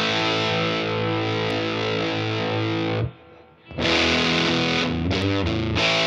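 Electric guitar played through a Satellite Amplifiers White JFET overdrive pedal into a Fender Princeton amp: a held, driven chord rings for about three seconds, breaks off briefly, then the playing starts again.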